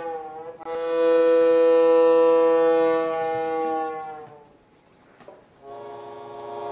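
Solo accordion holding long sustained chords. One chord swells and then fades away about four seconds in, and after a brief near-quiet a new chord enters near the end.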